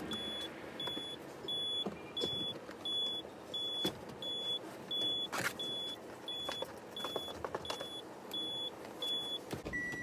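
A car's interior warning chime beeping steadily, about three short high beeps every two seconds, with scattered knocks and rustles of handling inside the cabin. Near the end the high beep stops and a lower, longer beep sounds.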